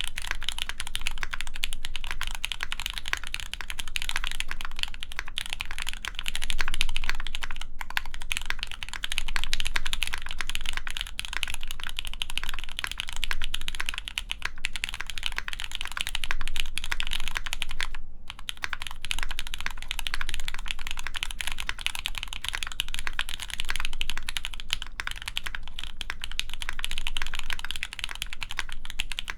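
Steady, fast typing on a mechanical keyboard with lubed Gateron Mizu Mink switches mounted on a full aluminum plate, capped with GMK keycaps. The keystrokes run densely together, with a brief pause about two-thirds of the way through.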